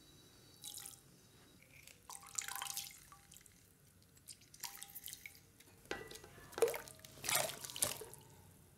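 Lemon juice dripping from a hand-held squeezer into a steel pan of water, then cubes of elephant foot yam tipped in from a bowl and splashing into the water. The splashes come in short bursts, loudest near the end.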